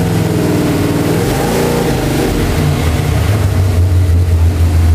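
Chevy van's engine heard from inside the cab, accelerating hard. The pitch shifts over the first couple of seconds, then a loud, steady low drone builds from about three and a half seconds in.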